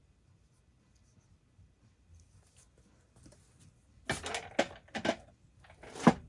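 Small metal parts and bolts clinking and clattering as they are handled on a workbench: a quick run of clicks about four seconds in, then one louder clack near the end.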